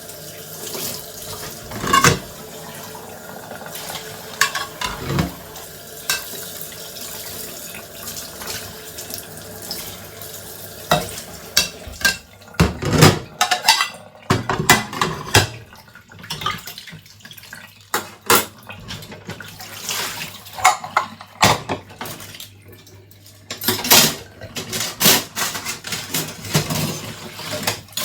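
Dishes being washed at a sink, with tap water running steadily. Plates and cutlery knock and clink against each other now and then at first, then much more often from about the middle on.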